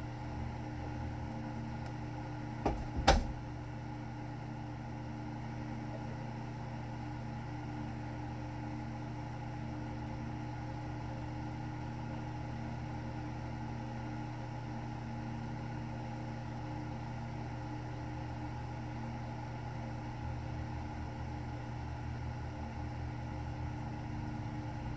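Steady machine hum with a few faint fixed tones, broken by two sharp clicks close together about three seconds in.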